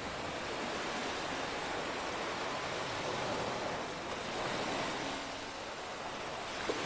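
Steady rushing noise with no distinct events, and a single small tap near the end.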